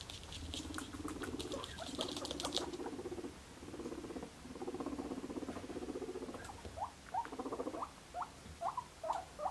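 Guinea pigs calling: a low, rapidly pulsing rumble in long stretches, with quick light clicks over the first couple of seconds. From about two-thirds of the way in it gives way to a string of short rising squeaks.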